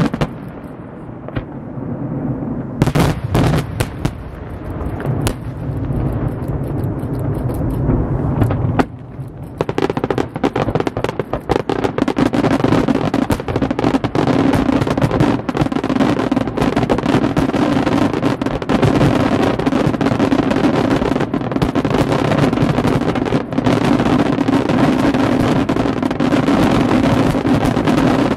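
Aerial fireworks shells bursting over a lake: separate sharp bangs with a low rumble for the first several seconds, then, from about ten seconds in, a dense continuous barrage of rapid bangs and crackling.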